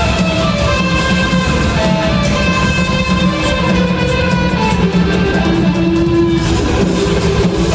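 A rock band playing live in a concert hall: electric guitar, bass and drums in an instrumental passage with no singing. A violin plays along.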